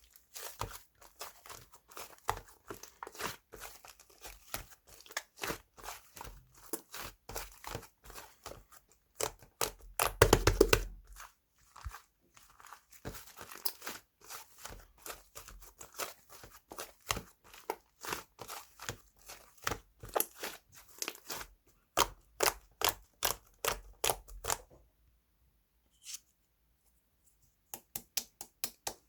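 Rapid small clicks and crinkling from something being handled up close, with a louder crunchy rustle about ten seconds in and a pause of about two seconds near the end.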